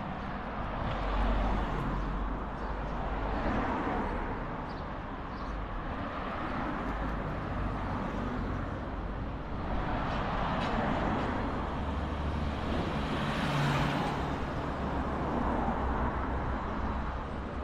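Road traffic on a town street: cars passing one after another, each swelling and fading over a couple of seconds, the loudest pass about three-quarters of the way through, over a steady low rumble.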